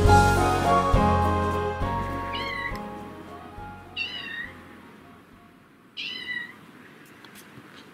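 A domestic cat meows three times, each meow short and falling in pitch, about a second and a half to two seconds apart. Soft background music fades out under the first meow.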